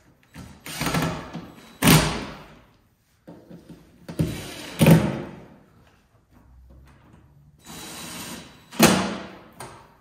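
Handheld cordless drill/driver run in three short bursts, each ending in a sharp loud knock as it bottoms out.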